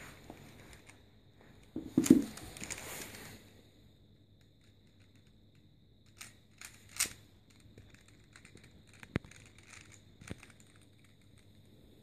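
Plastic Rubik's cube being turned by hand: scattered short clicks and rattles of its layers, with a louder rustling burst about two seconds in.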